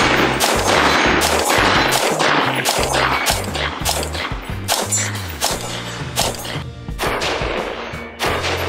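AR-15 rifle fired rapidly in semi-automatic, sharp shots about two or three a second with a short pause past the middle, over background music with a stepping bass line.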